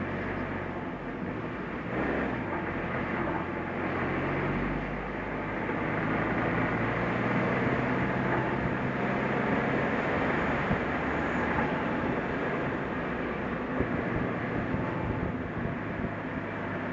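New-model Suzuki Jimny driving along a mountain road: steady engine hum with tyre and road rumble, growing a little louder after about five seconds.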